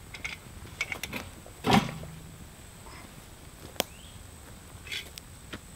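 Scattered knocks and clinks of metal cookware on cast-iron pots over a campfire grill, the loudest about a second and a half in with a short low ring, mixed with a few sharp crackles from the wood fire.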